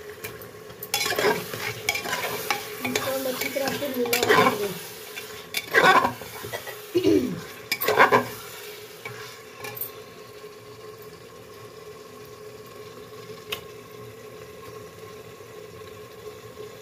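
Metal ladle stirring and scraping mutton pieces through sizzling masala in a pressure cooker, the bhuna stage of frying the meat on high flame. The ladle clatters against the pot in strokes during the first half, then only a steady, quieter sizzle is left.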